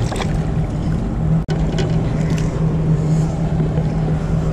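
A boat's motor running steadily, a constant low hum, with a momentary dropout about a second and a half in.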